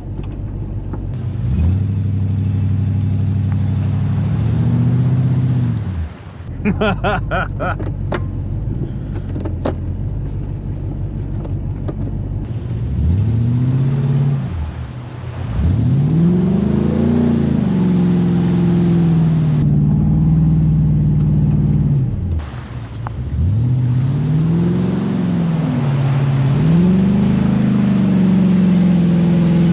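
Off-road vehicle's engine revved hard and repeatedly, climbing and dropping in pitch several times, as it is forced through a deep mud hole in two-wheel drive.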